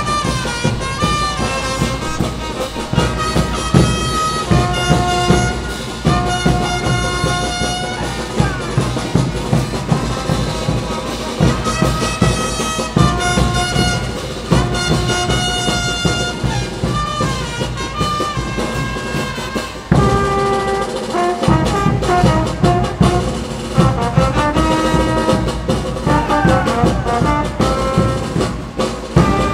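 Brass-led band music for a tinku dance, held horn notes over a steady drumbeat.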